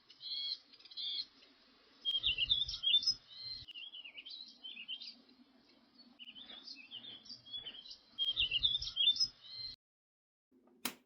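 Small birds chirping and twittering in quick, varied calls, with two spells of low rumble, about two seconds in and again near eight seconds. The sound cuts off about a second before the end, followed by a single click.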